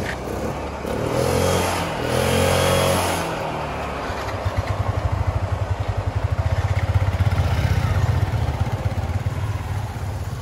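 Motorcycle engine revved in two short swells, then running with a fast, low, even pulsing beat.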